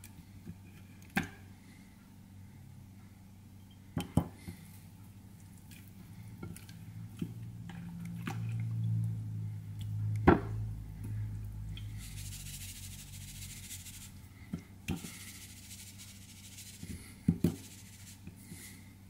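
Hands handling wet raw chicken pieces, squishing them in sauce, with a few sharp knocks of the pieces and hands against a ceramic bowl and plate. A steady low hum runs underneath, and there are two short stretches of soft hiss in the second half.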